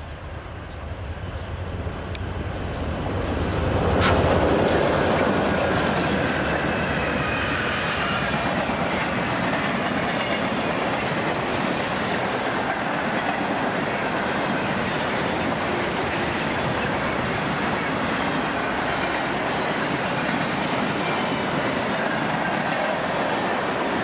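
Santa Fe freight train's diesel locomotives approaching and passing close by, the drone rising to its loudest with a sharp crack about four seconds in. A long mixed train of freight cars then rolls past with a steady clatter of wheels over the rails and a faint high wheel squeal.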